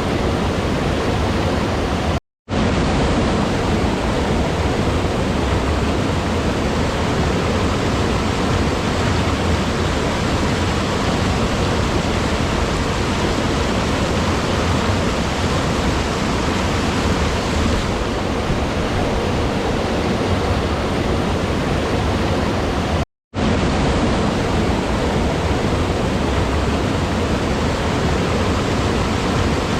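Steady rushing water, an even, unbroken wash of noise. It drops out to silence for a split second about two seconds in and again about 23 seconds in, where the soundtrack is joined.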